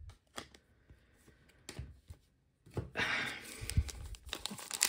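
Footy Stars trading cards being handled and flipped through by hand: a few light clicks and taps at first, then from about three seconds in a denser run of cards sliding and flicking against each other.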